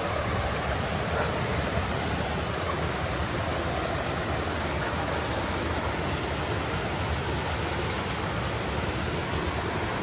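Waterfall rushing: a steady, unbroken wash of falling water close by.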